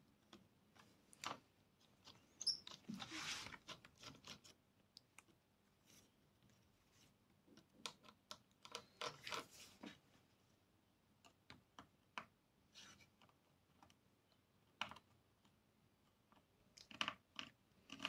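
Faint, scattered small clicks and short scrapes of a screwdriver and fingers working on an opened 2012 MacBook Pro while its battery is being disconnected, with quiet gaps between and the busiest stretches a few seconds in and again near the middle.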